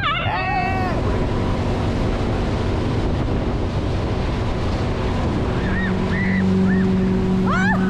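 Motorboat running at speed while towing a tube, with the rush of its churning wake and wind on the microphone. About five and a half seconds in, a strong steady engine tone comes up over the water noise.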